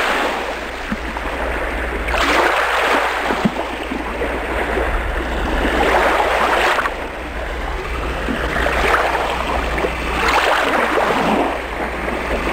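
Rushing water that swells and ebbs in repeated surges every three to four seconds, over a steady low hum.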